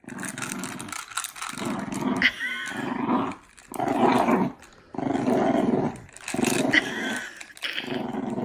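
A dog growling and grumbling in a series of about seven short bursts, each roughly a second long.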